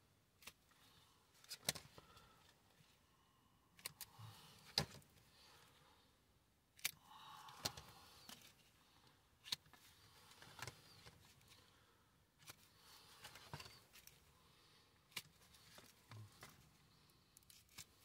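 Near silence broken by faint, irregular clicks and soft rustles, about a dozen in all: small plastic ID cards being handled and shuffled by hand.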